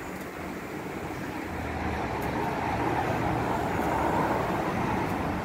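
A car passing on the road. Its engine and tyre noise swells to its loudest about four seconds in, then starts to fade.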